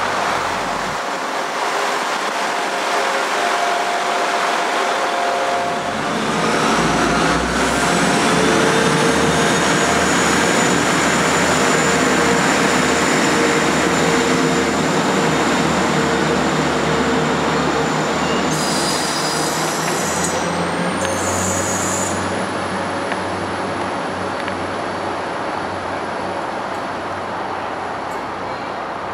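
A train running past close by: a loud rumble of wheels on rail with several steady whining tones. It swells about six seconds in, has a few brief high squeals a little past the middle, then slowly fades.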